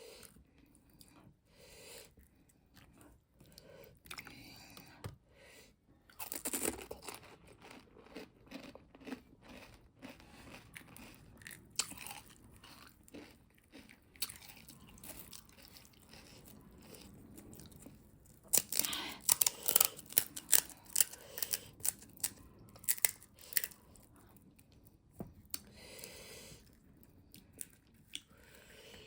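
A person crunching and chewing pani puri, the crisp hollow puri shells cracking between the teeth in quick irregular crackles. The crunching is loudest in a dense run about two-thirds of the way through.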